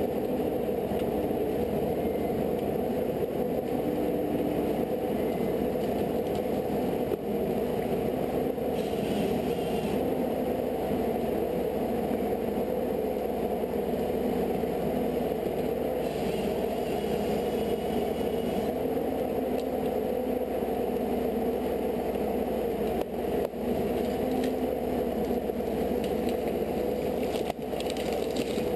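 An engine running steadily, a constant drone with no change in pace.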